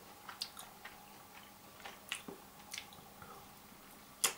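Soft, wet chewing and mouth clicks of a person eating fried nutria offal, with a sharper smack near the end as a piece goes to the mouth.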